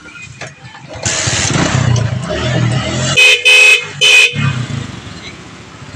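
A TVS motorcycle's engine starts about a second in and keeps running, and its newly fitted electric horn gives three short blasts of steady pitch, the second and third a little longer than the first.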